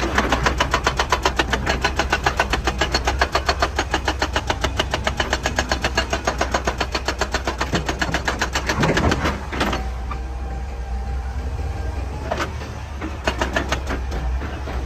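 Excavator-mounted hydraulic breaker hammering rock in a fast, even rhythm of about ten blows a second, stopping about nine and a half seconds in. The excavator's diesel engine keeps running underneath, with a few separate knocks after the hammering stops.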